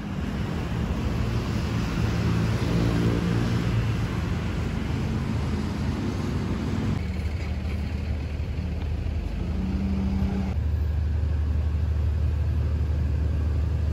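Road traffic on a busy city street: cars passing and engines running in a continuous low hum, with the sound changing abruptly about seven and ten and a half seconds in.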